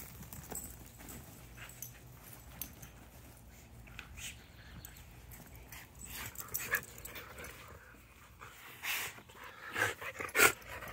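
Two dogs tussling over a plastic frisbee: short scuffles and small dog noises, busier and louder in the last couple of seconds.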